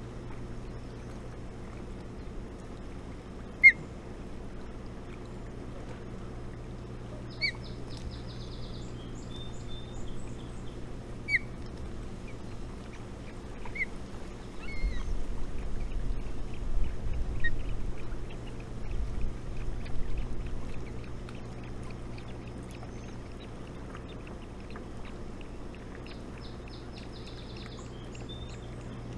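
Osprey nest-camera sound: a steady low hum under a faint rushing noise, with a handful of short, high peeps from the osprey chicks, the sharpest a few seconds in. A stretch of low rumbling comes in the middle.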